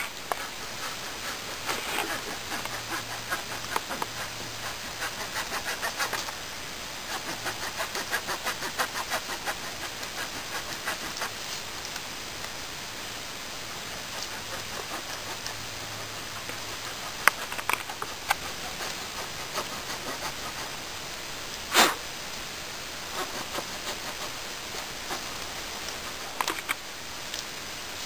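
Swiss Army knife cutting away at the end of a peeled wooden spear shaft: a run of short, repeated scraping strokes, then scattered strokes with a couple of sharper knocks later on.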